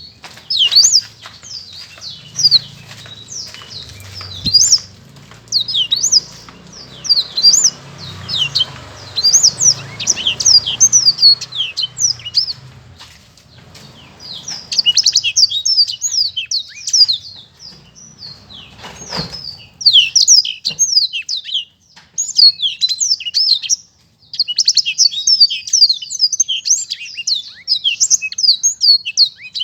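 Blackthroat (black-throated canary) singing a clear, fast song: rapid runs of quick, high notes sweeping up and down, in bursts of a second or two separated by short pauses.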